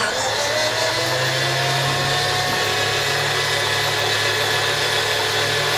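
The right-hand Pratt & Whitney R-1830 radial engine of a C-47A Dakota turning over, its propeller spinning, with a steady mechanical whir and low hum that holds level throughout.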